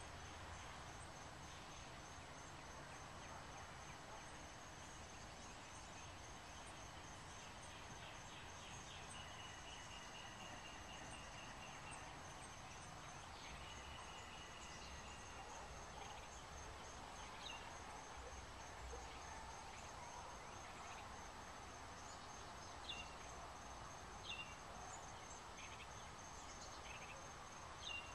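Faint outdoor ambience: a steady, high-pitched insect trill with distant birds calling, two short trills about a third of the way in and a few brief chirps near the end.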